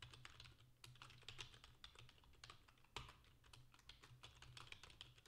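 Faint computer keyboard typing: quick, irregular keystroke clicks, several a second, with one louder key strike about three seconds in.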